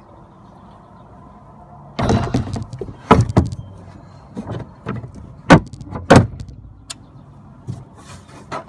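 Bicycle being lifted and set down in the cargo bed of a utility vehicle: a run of clattering knocks and clunks starting about two seconds in, with a few loud bangs as the frame and wheels hit the bed.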